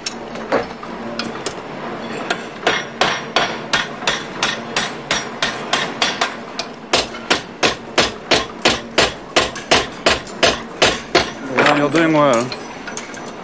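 A hand hammer striking a steel pin and punch on metal on an anvil, making a hinge by hand: sharp metal-on-metal blows, a few at first and then a steady run of about three a second. Near the end comes a brief wavering squeak.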